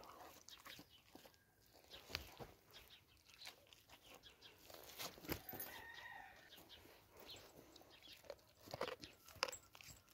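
Kangal dog biting and chewing a raw meaty leg bone: faint, scattered crunches and clicks of teeth on meat and bone.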